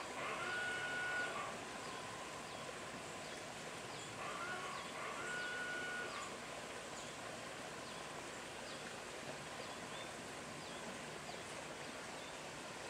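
Birds calling over steady outdoor ambience. A call with a held note sounds twice, about four seconds apart, and short high chirps repeat throughout.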